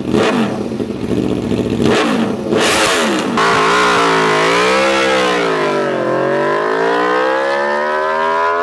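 V4 sport-bike engines: an Aprilia RSV4 revved hard on its stand, a quick run of sharp throttle blips, then a V4 bike accelerating away. Its engine note climbs, drops back and climbs again through the gears.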